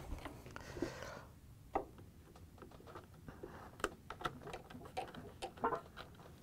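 Faint, irregular light clicks and rubbing of a refrigerator door gasket being worked by hand, its hard plastic edge pressed and pried under the plastic door liner with fingers and a small tool.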